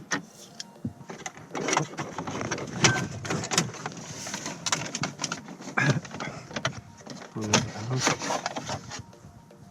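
Irregular clicks, knocks and rattles of hand tools and plastic dashboard trim being handled while screws are taken out of the instrument panel, quieter near the end.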